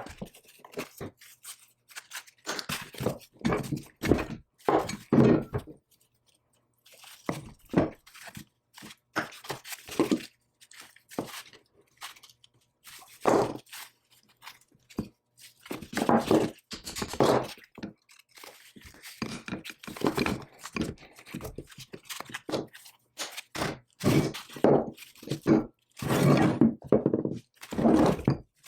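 Irregular clunks, knocks and scrapes of heavy metal parts being handled and worked on a bench, as an old cast-iron power hammer is taken apart.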